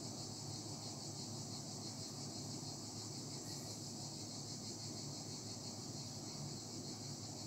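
Steady high-pitched background hiss with a fast, fine flutter, over a faint low hum; no separate sounds stand out.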